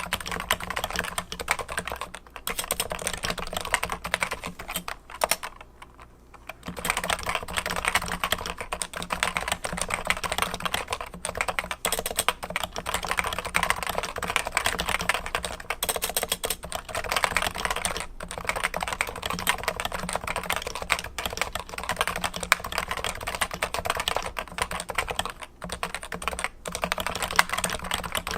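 Continuous typing on a Cooler Master Novatouch keyboard with 45 g Topre electro-capacitive switches and Topre high-profile keycaps: a dense, even stream of key presses, with a short pause about five to six seconds in.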